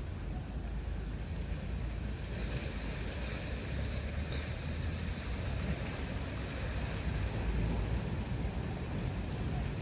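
Small sea waves lapping in a calm bay, a steady wash with wind rumbling low on the microphone.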